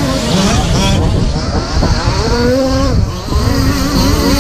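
Radio-controlled short course trucks racing, their motors whining and changing pitch up and down as they accelerate and brake around the track, over heavy wind buffeting on the microphone.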